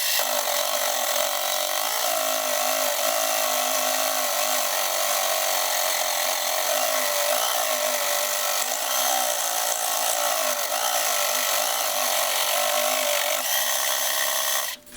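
Homemade scroll saw, driven by an electric jigsaw mounted under its table, running steadily with its reciprocating blade cutting wood, the motor's pitch wavering slightly under load. It cuts off suddenly near the end.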